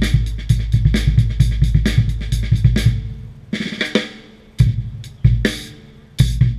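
Acoustic drum kit played with sticks: a busy run of bass drum, snare and tom strokes with cymbal crashes for about three seconds, then a short fill, then a few single heavy hits spaced apart.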